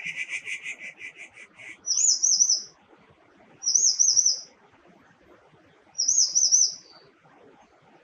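Grey treepie (Taiwan's endemic subspecies) calling: a fast rattling chatter of about seven notes a second for the first second and a half. It is followed by three short, high, warbling whistled phrases about two seconds apart.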